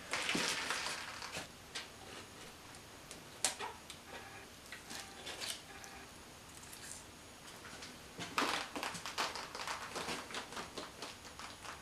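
Metal head gasket being peeled off a BMW M54B30 engine block, giving scattered short scrapes, crinkles and light metallic clicks. A denser run of quick clicks and rustles starts about eight seconds in.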